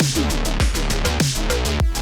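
Electronic background music with a steady beat and a falling bass note on each beat, about every 0.6 seconds.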